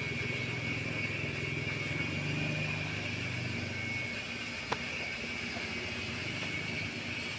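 A steady low mechanical hum with a thin high whine above it, and one sharp click about four and a half seconds in.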